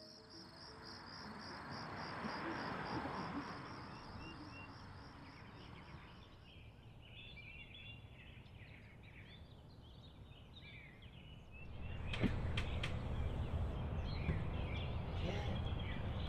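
Outdoor ambience: a soft rush of noise swells and fades over the first few seconds, then small birds chirp. About twelve seconds in, a louder, steady background comes in with a few sharp clicks.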